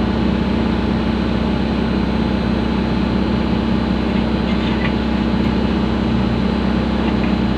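Excavator's diesel engine running steadily, with an even low drone and no change in speed.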